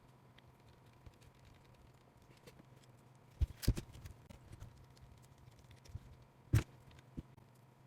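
Small clicks and taps of a hand screwdriver and small parts as screws are driven into a mini RC crawler's rear axle mounting. The sharpest taps come in a cluster about three and a half seconds in and once more near six and a half seconds.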